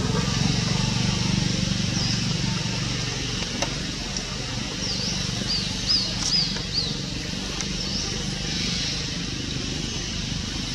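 Outdoor ambience with a steady low engine-like hum and a high hiss, and a short run of quick high chirps about five to seven seconds in.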